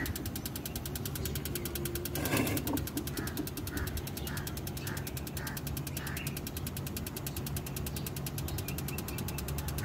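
Electric spark igniter of an Arduino-controlled gas geyser snapping in a rapid, even train of clicks. It is still sparking after the gas has lit, before the controller cuts the ignition off.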